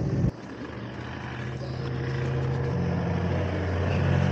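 A road vehicle's engine running steadily while driving, a low hum that grows slightly louder; it starts abruptly just after a short bit of talk cuts off.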